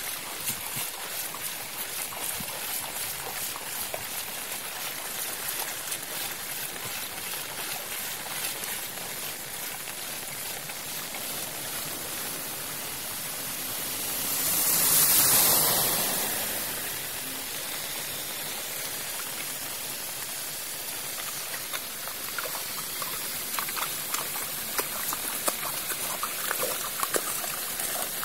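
Steady hiss of rain and floodwater running over a street, with a louder rush that swells and fades over a few seconds about halfway through. Near the end, small splashes as a stick stirs the water at a curb drain.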